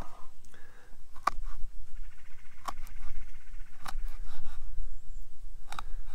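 Four short, sharp taps spread over several seconds, over a steady low rumble.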